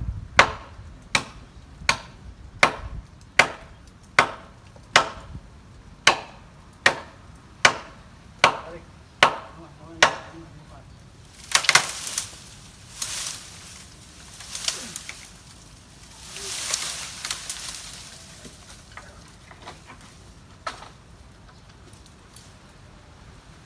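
A blade chopping into the wood of a fallen tree: about fourteen steady strikes, roughly one every 0.8 seconds. Then several longer bursts of rustling and crackling, and a single knock near the end.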